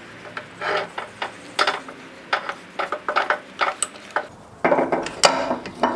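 A metal hand tool scraping and clinking against the rusted cast-iron body of a Wilton vise, in short, irregular strokes. A quicker run of louder scrapes comes near the end.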